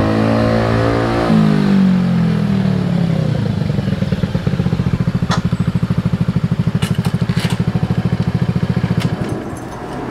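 Honda Ruckus scooter's small engine slowing as it pulls up, its pitch dropping about a second in, then idling with an even pulsing beat before it is switched off near the end. A few light clicks sound during the idle.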